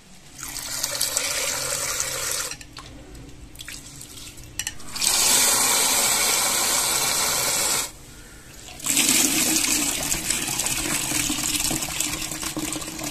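Water pouring and splashing in a steel bowl as soaked split black gram and rice are washed by hand. It comes in three spells of a few seconds each, the middle one loudest.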